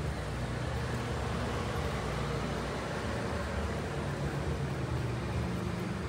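Steady low rumble and hiss of background noise with no distinct events, like distant traffic or a running machine.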